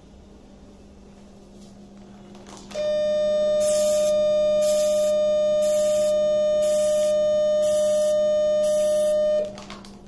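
Eclipse Force 400 electrosurgical unit sounding its steady activation tone for about six and a half seconds while its pencil electrode cuts into chicken tissue in endo cut mode. The cutting sizzle comes in about six even pulses, roughly one every three-quarters of a second, the pulsed cutting of endo cut. A faint low mains hum runs underneath.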